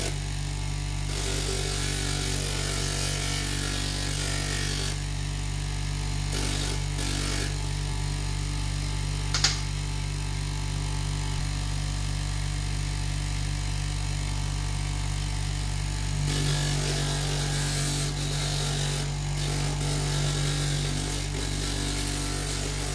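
Electric bench-grinder motor running steadily with an abrasive sanding pad on its disc, a hand-held stone pressed against the spinning pad in spells, each giving a gritty grinding hiss over the motor's hum. One sharp click a little before halfway.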